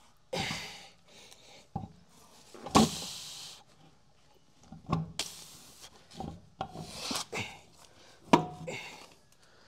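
Lug nuts being spun onto a pickup's wheel studs by hand: scattered metal clinks, scrapes and rustling, with sharp knocks about three seconds in and again past eight seconds.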